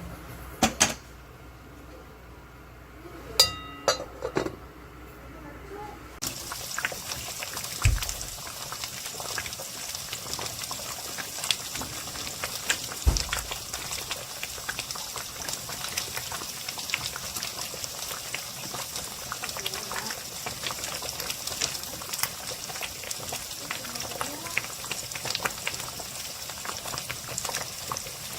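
A pot of abalone rice porridge bubbling and popping as it simmers. It starts abruptly about six seconds in, after a few ringing metal clinks like a utensil or lid against the pot.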